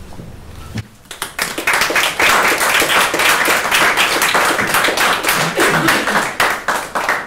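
Small audience applauding, starting about a second in and dying away near the end.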